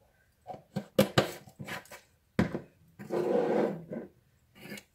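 Several short knocks and clatters, then a rustling scrape lasting about a second and one more knock near the end: kitchen containers and utensils being handled.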